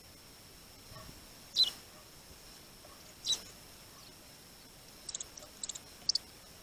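Small birds calling at a feeder: two short, sharp high calls well apart, then a quick run of short chips near the end.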